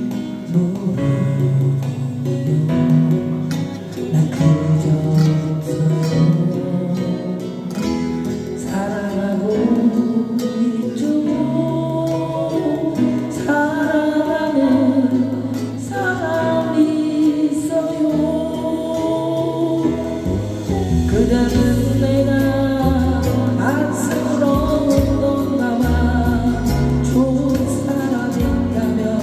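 A slow ballad sung by a solo voice over a karaoke backing track. The accompaniment plays throughout, and the sung line comes in about a third of the way through.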